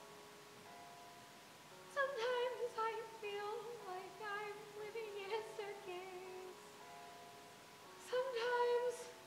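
Woman singing a musical-theatre song with vibrato over a quiet accompaniment of held notes: one phrase from about two seconds in, then a short held note near the end.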